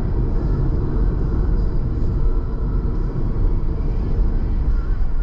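Car driving along: a steady low rumble of engine and road noise, with no distinct events.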